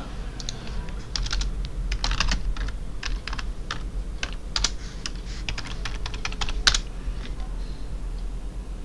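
Computer keyboard typing: a run of irregular key clicks as a short command is typed, with one louder keystroke near the end.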